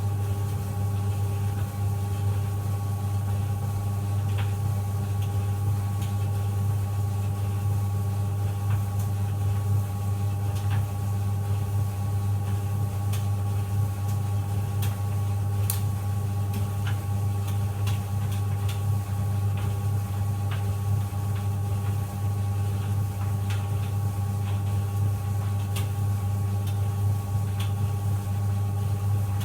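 White Knight CL372WV vented compact tumble dryer running on high heat, its drum turning in one direction only, with a steady low motor hum and a few faint scattered ticks.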